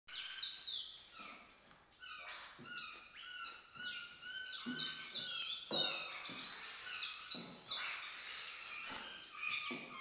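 Many small aviary birds chirping and calling together: a dense chorus of quick, high-pitched notes, most of them falling in pitch.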